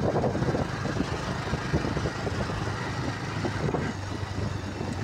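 Bajaj Pulsar 150's single-cylinder four-stroke engine running steadily as the motorcycle cruises at about 40 km/h, with wind rushing over the microphone.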